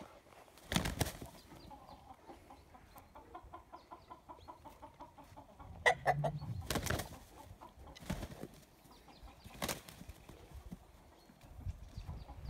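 Two roosters sparring to settle the pecking order: three short bursts of wing flapping, and a run of rapid low clucking with a short call about six seconds in.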